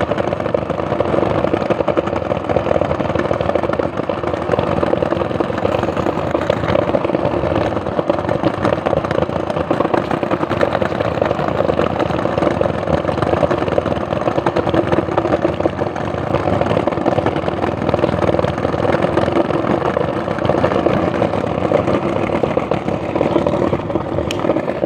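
Skateboard wheels rolling over brick paving: a steady, loud rolling rumble with a droning hum.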